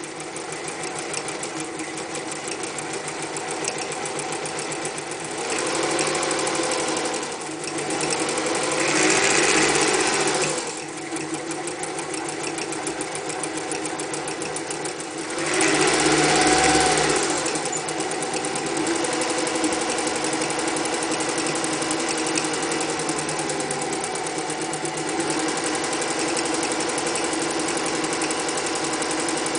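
Electric Singer 201 sewing machine running continuously as it stitches through fabric, its needle mechanism clattering in a rapid rhythm. It speeds up three times, louder and rising in pitch, then eases back to a steady pace.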